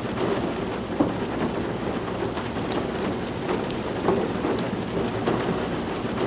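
Steady rain during a severe thunderstorm, an even hiss of rainfall with a few sharp taps of drops, the loudest about a second in and again about four seconds in.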